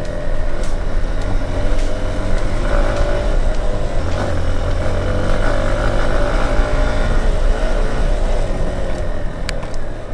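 Motorcycle engine running steadily while being ridden, its note slightly stronger in the middle.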